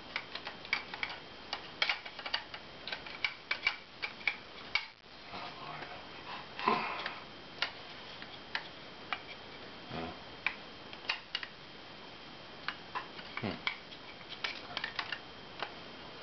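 Irregular clicks, light metallic taps and a few short scrapes from an H&R Pardner Pump Protector pump-action shotgun being handled as its barrel is fitted back onto the receiver during reassembly.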